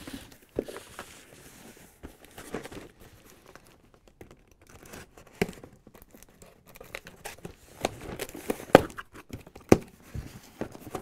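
A corrugated cardboard shipping carton being torn open by hand: packing tape tearing and stiff flaps rustling and scraping, with several sharp cracks from the flaps toward the end.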